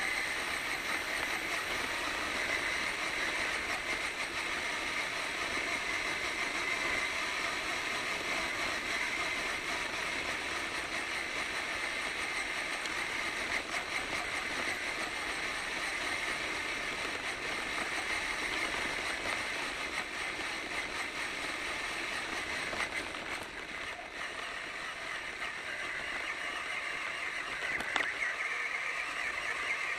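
RC truck driving on a dirt road, its motor and gears whining steadily over the rumble of the tyres on loose dirt. The whine shifts in pitch with speed and climbs near the end, with one sharp click shortly before.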